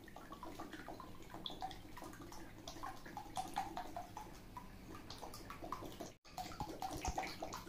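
Water poured from a plastic bottle into a shallow plastic tub already holding water: a faint, steady trickling and splashing, briefly cut off about six seconds in.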